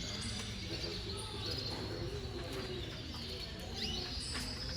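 Canaries chirping and calling, with a couple of quick rising chirps near the end, over a murmur of background chatter from people.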